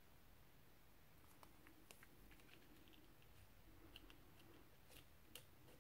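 Near silence, with faint small ticks and taps from a die-cut paper leaf and a glue bottle being handled and pressed onto a paper card.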